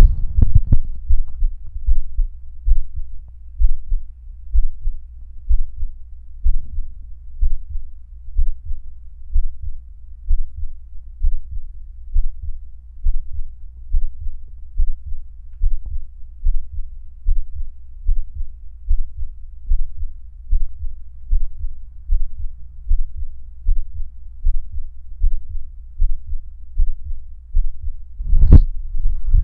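Heartbeat sound effect: low, muffled double thumps (lub-dub) repeating at an even pace. Near the end there is one sharper, brighter knock.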